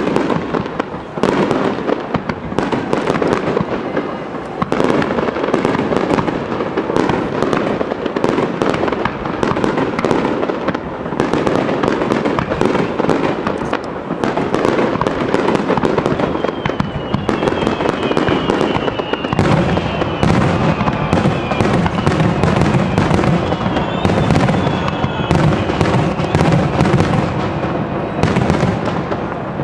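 A Japanese aerial fireworks display in a dense, continuous barrage: shells bursting one after another with crackling in between. Heavier booms join about two-thirds of the way through, and thin high whistling tones glide up and down in the middle and later part.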